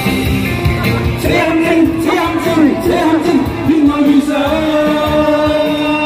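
Cantonese pop ballad backing track with a singer holding long, wavering notes without words.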